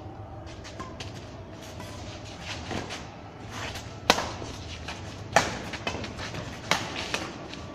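Badminton rackets hitting a shuttlecock in a doubles rally: a run of sharp hits about a second and a quarter apart, fainter at first and loudest in the second half.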